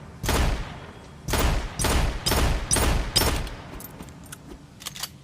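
Kramer .50 Magnum pistol gunshot sound effect: six heavy shots with echoing tails, one early and then five fired about half a second apart, followed by a few light metallic clicks and rattles.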